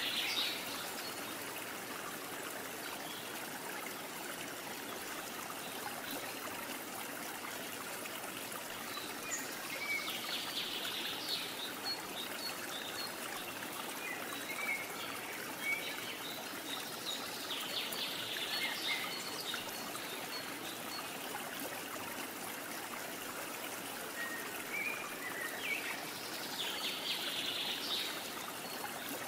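Steady sound of a flowing stream, with short bird calls heard three times.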